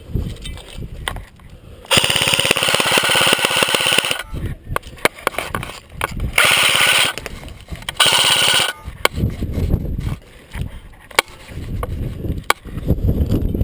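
Airsoft gun firing full-auto in three bursts: one of about two seconds, then two short ones a second or so apart. Low rumbling handling noise before and after.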